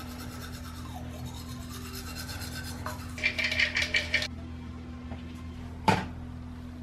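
Small plastic pill bottle being opened and shaken, with a quick run of rattles about three seconds in, then a single sharp click near the end, over a steady low drone.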